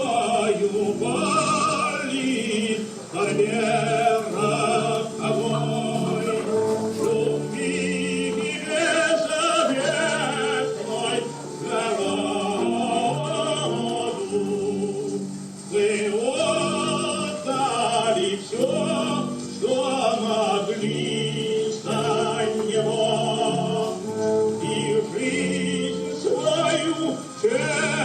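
Music with operatic-style singing: voices with vibrato over a sustained accompaniment.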